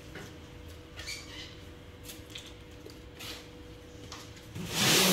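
Objects being handled and shifted by hand: light rustles and small knocks over a faint steady hum, then a louder scraping rush near the end.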